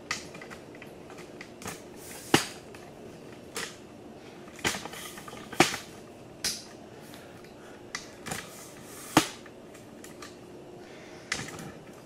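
Scattered sharp clicks and knocks, about a dozen at irregular intervals, from handling around kitchen cabinets. The loudest fall about two and a half, five and a half and nine seconds in.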